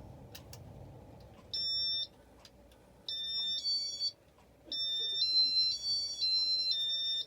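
High-pitched electronic beeps from a 1988 Casablanca Victorian ceiling fan's control as it is put into demo mode. There is one beep, then two at different pitches, then five beeps stepping up and down in pitch like a short tune.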